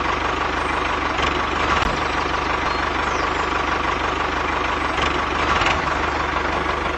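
Tractor engine running steadily at an even pace.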